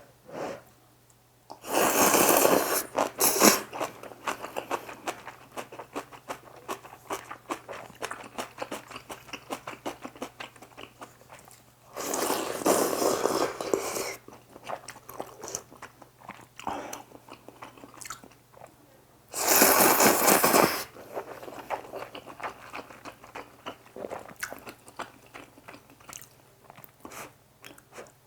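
Close-miked eating of spicy instant noodles with rice: steady wet chewing and mouth clicks, broken three times by loud slurps of noodles lasting a second or two. A faint steady low hum runs underneath.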